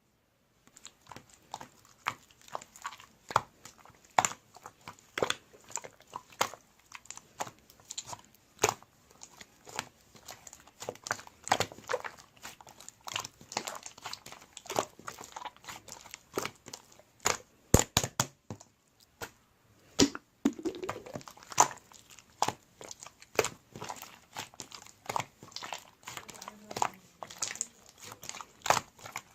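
Clay slime being squished and pressed by hand, giving a dense, irregular run of sharp clicks, pops and crackles.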